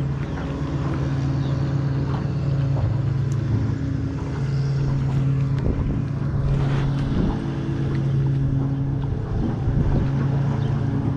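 Small outboard motor on a jon boat running steadily at low speed, a constant low hum.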